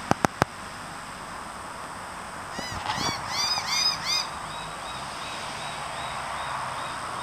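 Juvenile grey butcherbirds calling: a quick run of short, arched call notes, several overlapping, starting about two and a half seconds in, then a fainter string of single notes about three a second that trails off. Three sharp clicks just at the start.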